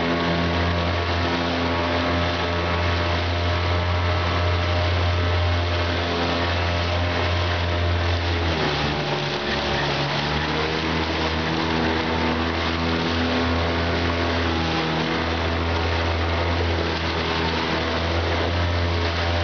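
Small outboard motor running steadily as it pushes a loaded canoe through fast water, over a steady rush of water along the hull. About eight and a half seconds in, the engine note drops briefly and then climbs back up to speed.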